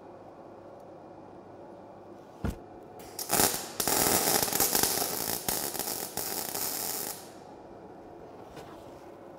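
Electric arc welding: a single tack weld of a steel leg onto a steel angle-iron frame, with the arc crackling and spitting for about four seconds and then cutting off sharply. A brief knock comes shortly before the arc strikes.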